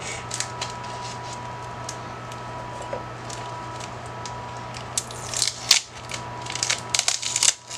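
Clear plastic wrap being picked at and peeled off a potted plant by hand, crinkling and crackling: scattered small clicks at first, then a denser run of crackling in the last three seconds.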